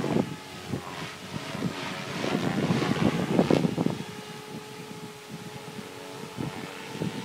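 SAB Goblin 500 electric RC helicopter flying at a distance: a steady whine from its motor and rotor blades. Gusts of wind hit the microphone in the first half.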